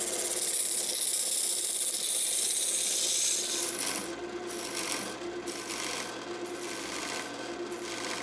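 Half-inch bench chisel, used as a scraper, cutting a spinning blank of dry spalted maple on a Craftex wood lathe. For the first three and a half seconds the cutting is a steady hiss. After that it comes in shorter strokes about once a second, over the lathe's steady hum.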